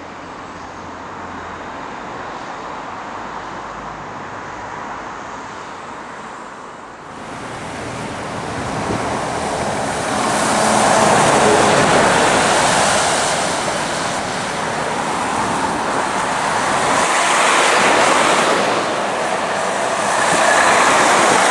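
Articulated lorries driving past on a wet road, a Scania and then a Volvo FH: engine noise and a loud hiss of tyres on wet tarmac, swelling as each one passes, with wind on the microphone. The first few seconds are quieter and steadier, and then the sound changes abruptly to the louder road passes.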